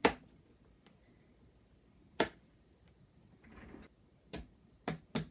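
Sharp plastic clicks of RAM sticks being pressed into the motherboard's memory slots, the slot latches snapping shut: two loud clicks about two seconds apart, a short rustle, then a few lighter clicks near the end.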